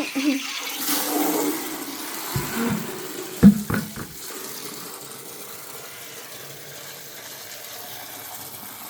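Water splashing and rushing as chicken drinkers are washed, with a handful of sharp knocks of the drinkers being handled about two and a half to four seconds in, the loudest near three and a half seconds. After that comes a quieter, steady run of water.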